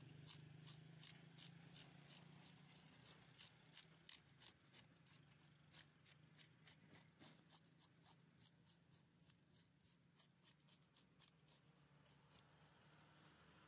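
Faint, rapid scraping of a broad blade along a whole fish's skin as it is scaled, about three or four short strokes a second, each flicking scales off.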